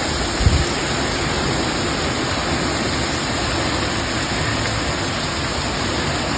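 Steady, dense rush of a heavy rainstorm, with one low thump about half a second in.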